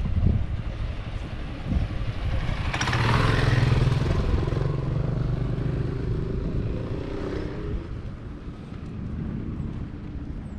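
A motor scooter riding past, its engine getting louder to a peak about three to four seconds in, then fading away.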